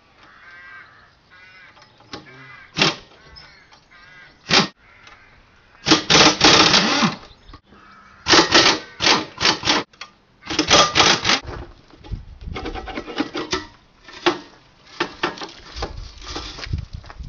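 Power drill fitted with a socket spinning out the steel footrest bolts on a quad's frame, in several short bursts of about a second each, with sharp metallic clicks and clanks in between.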